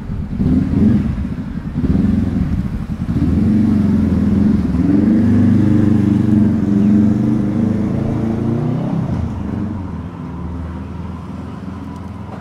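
A motor vehicle's engine passing close by: it grows louder, holds for several seconds, then fades away with a falling pitch.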